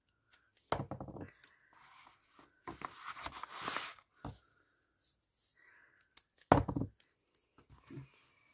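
A backdrop sheet being smoothed flat and taped down by hand: rustling and crackling handling noises in several bursts, the loudest a little after six seconds in.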